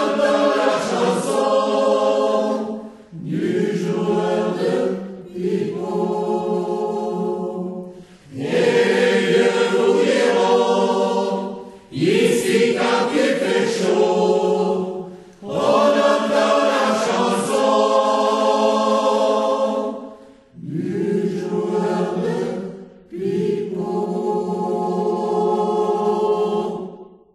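A choir singing held chords without clear words, phrase after phrase of a few seconds each with short breaths between; the singing stops abruptly at the very end.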